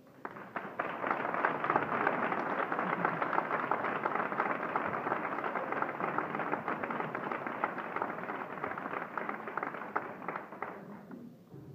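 Crowd applauding: dense, steady clapping that builds within the first second and dies away near the end.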